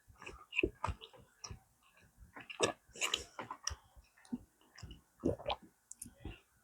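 Close-miked eating: chewing with irregular wet mouth clicks and small crunches.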